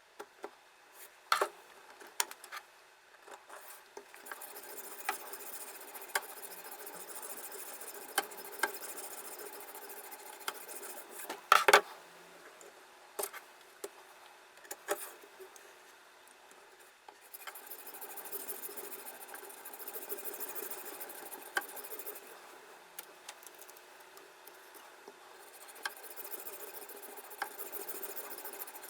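Sharpening stone rubbed back and forth along a knife blade in a guided sharpener, a continuous scratchy grinding with scattered clicks and one louder knock about twelve seconds in.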